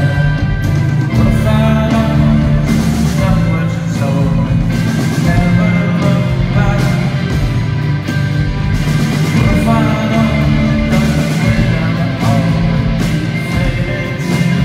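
Live rock band playing a stretch of the song between lyrics, with electric guitars, bass and drums.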